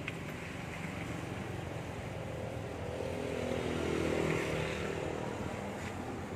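A motor vehicle passing on the road: its engine hum grows louder through the middle, loudest a little past halfway, then eases off near the end.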